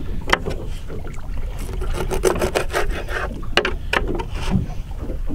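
Open-boat ambience: a steady low rumble of wind and water against a small fishing boat's hull. A few sharp knocks and clicks come through it.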